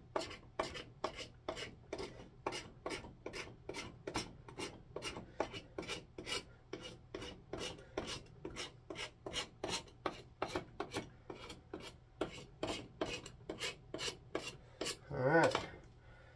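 Knife blade scraping the finish off a wooden handsaw handle in quick, even strokes, about three a second; the finish feels like very old shellac.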